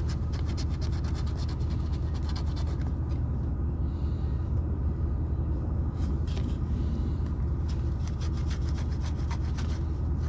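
A coin scratching the coating off a scratch-off lottery ticket in quick, rapid strokes. There are two spells of scratching, about three seconds each, with a pause in between, over a steady low rumble.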